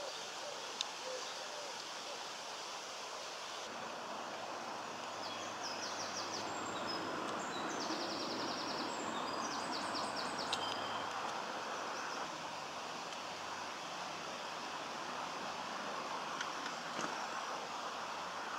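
Steady outdoor background noise, with a small songbird singing a few rapid trilled phrases in the middle.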